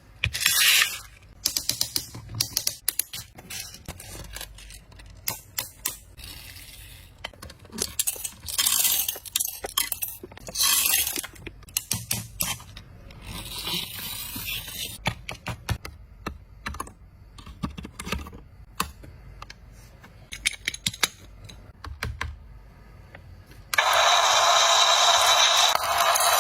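Irregular small clicks, rattles and scrapes from a toy cement mixer truck being handled. About two and a half seconds before the end, a loud steady hiss starts abruptly.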